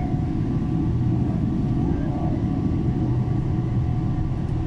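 Steady low rumble inside the cabin of a Boeing 777-300ER taxiing, its GE90 engines at low taxi power, with a faint steady hum underneath.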